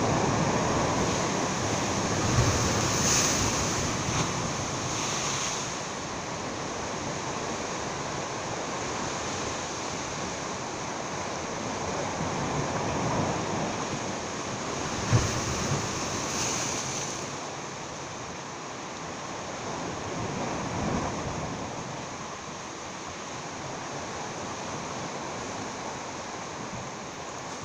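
Sea surf breaking and washing against jetty rocks, swelling and easing, with wind buffeting the microphone. Two sharp knocks stand out, about two seconds in and about fifteen seconds in, the second the loudest.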